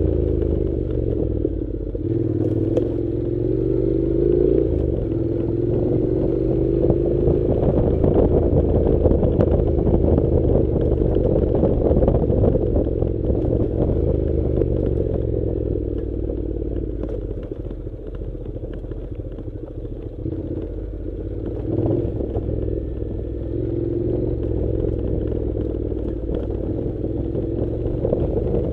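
Honda NC700's parallel-twin engine running as the motorcycle rides a rough dirt track. The engine note rises and falls with the throttle, mixed with a steady clatter and rattle from the bike over the rough ground.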